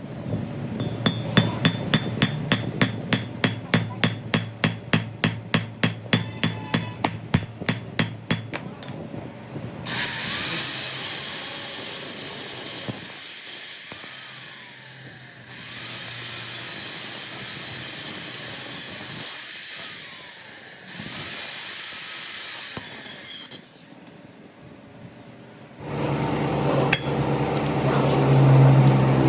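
A hammer striking metal about three times a second for some eight seconds, each blow with a short ring. Then come several stretches of steady high hissing, and near the end a low machine hum.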